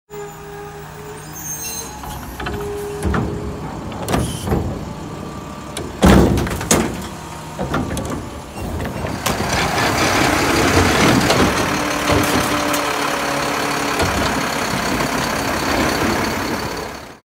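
Front-load garbage truck with a Curotto-Can cart arm picking up a wheeled trash cart: the truck's engine and hydraulics running, with several loud clunks between about three and seven seconds in, the loudest near six seconds, as the cart is gripped, lifted and shaken out. From about nine seconds in the truck's engine and hydraulics run loud and steady, then the sound cuts off abruptly.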